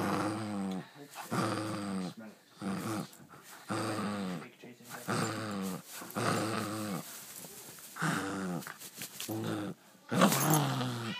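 A puggle growling and grunting in play with a toy in its mouth, a gremlin-like run of short, pitched calls about once a second, each sliding down in pitch, the loudest near the end.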